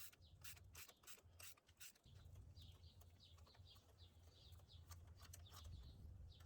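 Very faint: a few light ratchet clicks in the first two seconds as the spark plug is worked loose through the extension, then a bird chirping repeatedly in the background.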